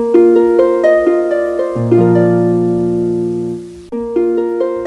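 Background music: a plucked-string, harp-like melody of notes entering one after another and ringing on, with a low note joining about two seconds in. The phrase breaks off and starts over about four seconds in.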